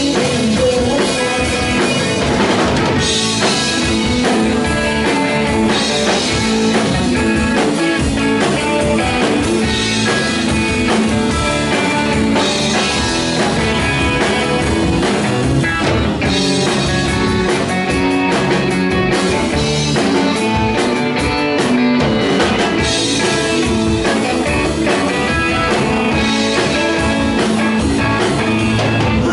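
Live rock band playing an instrumental passage without singing: electric guitars, bass and drum kit, with cymbal crashes recurring every few seconds.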